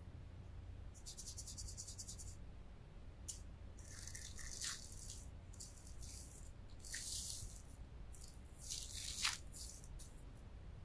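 Thin plastic packaging bag crinkling and rustling in several short bursts as it is worked off an insulated stainless steel bottle.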